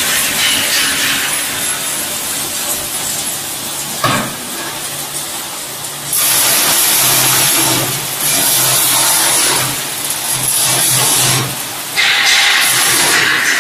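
Stainless steel octagonal drum of a peanut frying line running, with fried peanuts sliding and rattling against the steel in repeated loud surges of about two seconds each, over a steady motor hum. A single clank about four seconds in.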